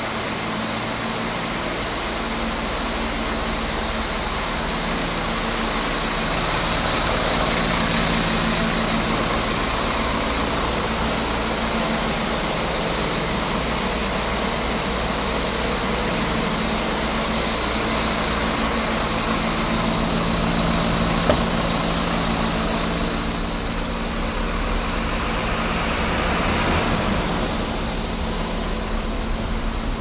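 A diesel engine idling steadily, with a constant low hum.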